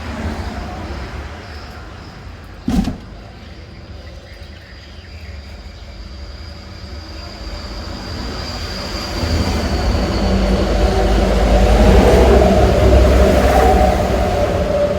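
A motor vehicle passing close by: a low engine rumble that builds through the second half, is loudest near the end, then eases off. There is a single sharp knock about three seconds in.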